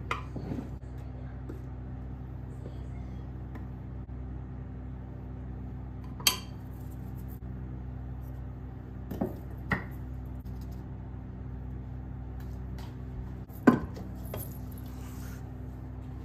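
Several sharp clinks against a stainless steel mixing bowl while flour is added, the loudest near the end, over a steady low hum.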